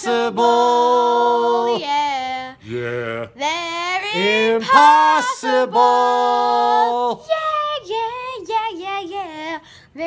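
A girl and a man singing unaccompanied, in long held notes with vibrato, then shorter notes stepping up and down from about seven seconds in.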